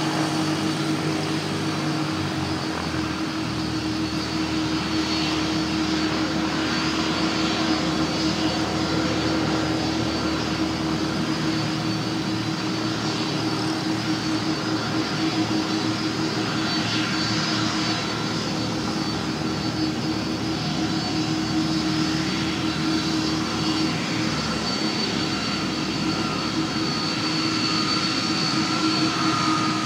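Airbus A330's jet engines running steadily: an even rush of noise with a steady hum and a high whine. A second whining tone grows stronger near the end.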